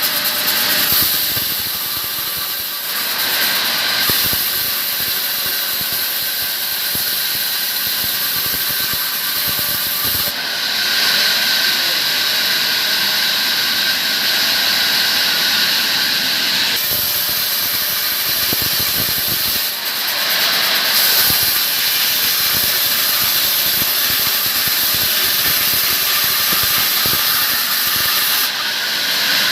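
A powered saw cutting palm timber, making a loud, steady, high-pitched hissing whine. Its tone shifts abruptly several times as the cut changes.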